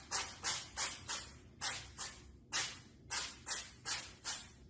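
A cat making a run of short, breathy hissing puffs, about two or three a second.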